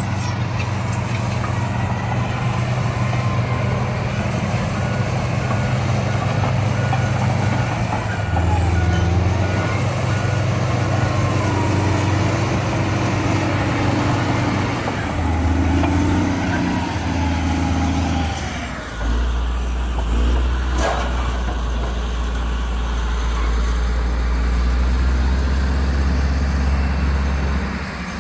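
HBXG SD9N crawler bulldozer's diesel engine running under working load, its note shifting abruptly several times and dropping to a deeper, heavier drone about 19 seconds in. A reversing alarm beeps steadily from about 4 to 11 seconds in.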